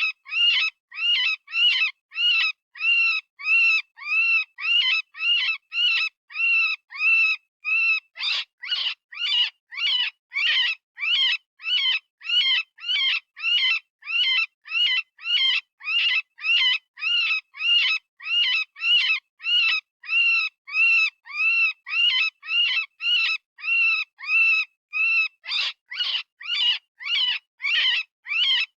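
Rabbit distress screams from an animal-sound-software predator call: short, high squealing cries, each rising and falling in pitch, repeating about twice a second with brief silences between them.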